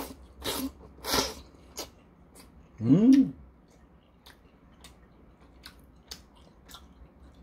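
A person slurps thick udon noodles wrapped in seasoned laver, with three loud slurps in the first second and a half. A short hummed "mm" comes about three seconds in, then quieter wet chewing with soft clicks.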